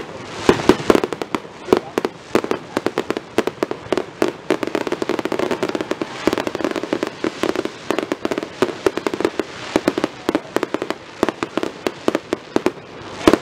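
Aerial fireworks display: shells bursting overhead in a rapid, continuous barrage of sharp cracks and bangs, many a second, with crackling between them.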